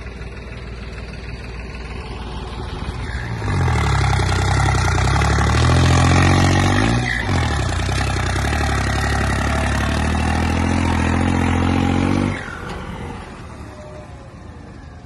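New Holland 3630 tractor's three-cylinder diesel engine pulling a loaded trolley. It runs quietly at first, becomes loud about three and a half seconds in, dips in speed and picks up again around seven seconds, then drops off sharply about twelve seconds in.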